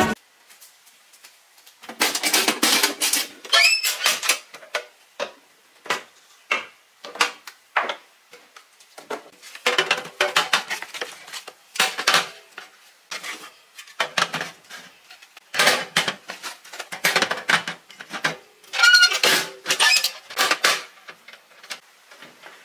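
Metal snow chains clinking and rattling in irregular bursts as they are handled.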